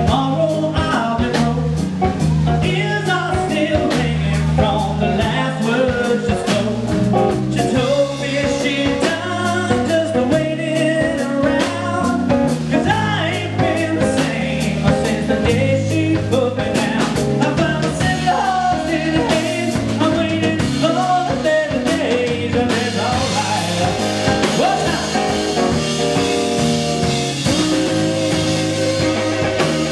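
Live blues band playing: electric guitar, bass guitar and drum kit, with a man singing over them. About two-thirds of the way through the cymbals grow brighter and louder.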